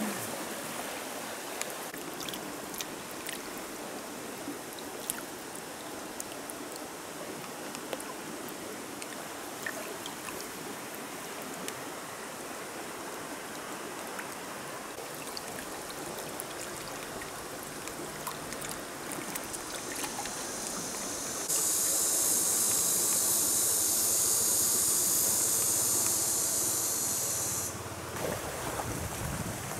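Flowing stream water: a steady rushing hiss. About two-thirds of the way through, a much louder high-pitched hiss comes in for about six seconds and then cuts off abruptly.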